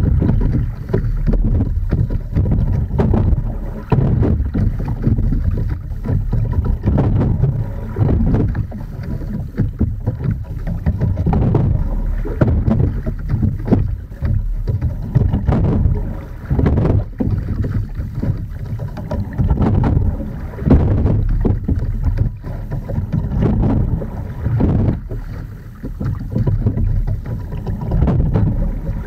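Sculling in an Edon TS515 single scull: the oars working and splashing in the water and the hull slapping through light chop, with knocks from the rigging on each stroke. Wind buffets the boat-mounted microphone, giving a deep, steady rumble underneath.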